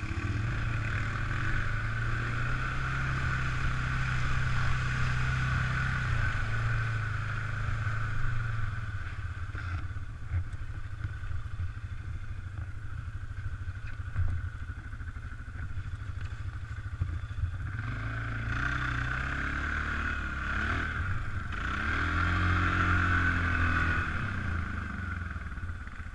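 Suzuki ATV's single-cylinder four-stroke engine running under way, steady for the first several seconds, easing off in the middle, then revving up and down in pitch from about 18 s to 24 s.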